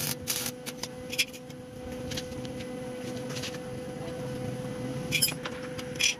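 Stick-welding arc crackling briefly at the start as a steel rod is tacked onto a frame, then a few sharp clinks of steel rods being handled and set in place, over a steady hum.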